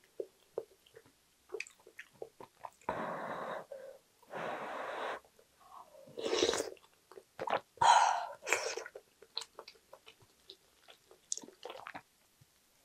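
Close-miked eating sounds from a wooden spoon and doenjang stew: two steady breathy hisses, then loud slurps of broth off the spoon about six and eight seconds in, with chewing and small spoon clicks throughout.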